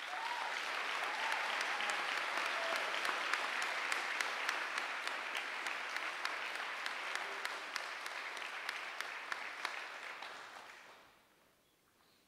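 Audience applauding, with many separate claps, beginning as the speech ends and dying away about eleven seconds in.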